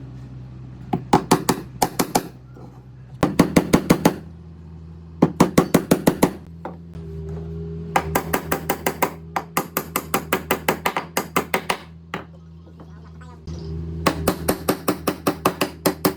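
Runs of rapid, evenly spaced sharp knocks, about seven a second, each run lasting a second or two with short pauses between, over a steady low hum.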